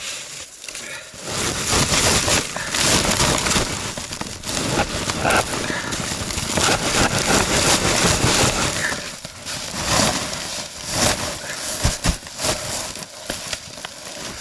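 Frozen firewood logs being pried loose from a stack: wood knocking and scraping against wood, with snow and ice crunching, and a few sharper knocks near the end.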